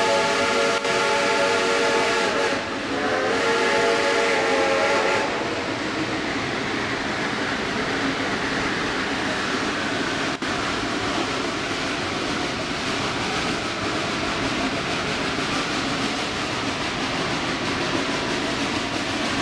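Steam locomotive whistle blowing in two blasts: the first is already sounding and breaks off about two and a half seconds in, the second ends about five seconds in. After that comes the steady running noise of the steam train, heard from a passenger car behind the engine.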